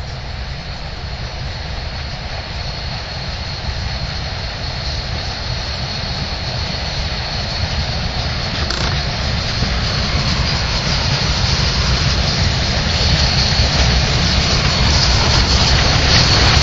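Narrow-gauge D&RGW K-27 2-8-2 steam locomotive approaching with its train, a steady rumble and hiss growing louder as it nears, then the coaches rolling past near the end.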